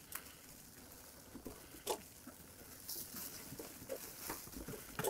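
E-mountain bike tyres rolling faintly over a leaf-covered dirt trail, with a light rustle and a few sharp clicks and knocks from the bike.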